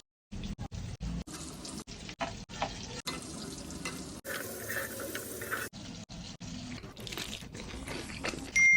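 Hot oil sizzling as chicken cheese balls fry, a steady hiss in short clips cut one after another.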